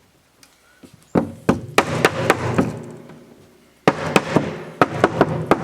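Rapid knocks of blows driving 2x6 tongue-and-groove boards together so the grooves seat tightly. A burst begins about a second in, pauses briefly, then comes back faster, around four knocks a second.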